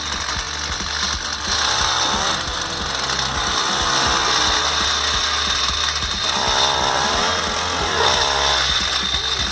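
Petrol-powered ice auger's engine running under load as it drills into lake ice, its speed rising and falling a few times.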